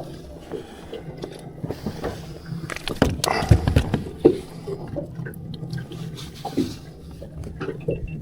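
Wet knocks and scrapes of a slippery fish being handled on a boat, with a cluster of louder knocks about three to four seconds in, over a steady low hum.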